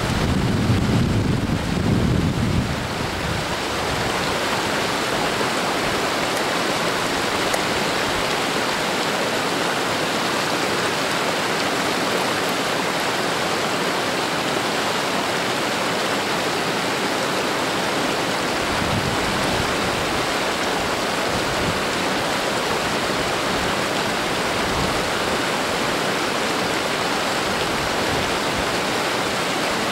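Steady rush of a shallow creek flowing over stones. In the first few seconds, wind buffets the microphone with a low rumble.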